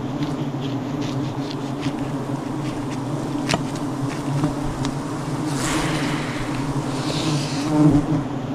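A swarm of wild honeybees buzzing steadily around their cut-open nest. A few sharp clicks and brief rustles break through the buzz, the loudest near the end.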